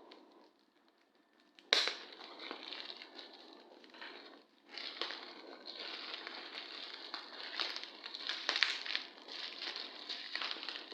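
Packaging being torn open and crumpled by hand: a sharp crack about two seconds in, then continuous crinkling and crackling with many small clicks.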